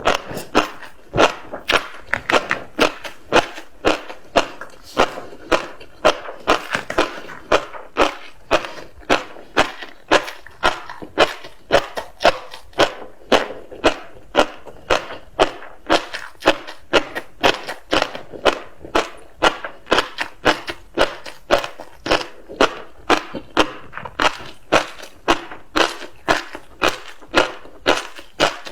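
Close-miked chewing of tobiko (flying fish roe): many small crisp pops and crunches as the eggs burst between the teeth, in a steady chewing rhythm of about two chews a second.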